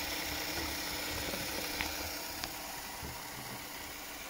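Small LEGO electric motor running steadily with a low whir, turning a glass jar of soapy water on rubber LEGO wheels; a couple of light clicks come about halfway through.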